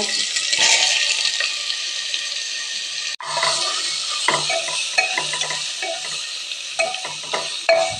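Sliced onions sizzling in hot oil in a pressure cooker; the sizzle swells just after they go in. From about three seconds in, a spatula scrapes and knocks against the pot again and again as they are stirred.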